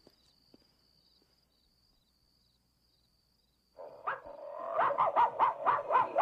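Faint footsteps with a steady high chirping of night insects, fading to near silence. About four seconds in, a loud cartoon soundtrack starts on a television: a quick run of short, pitched animal-like cries, about five a second.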